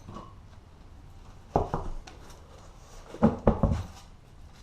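Metal hand tools clanking and knocking against metal as they are handled: a pair of sharp knocks about a second and a half in, then a louder cluster of three a little past three seconds, each with a short ring.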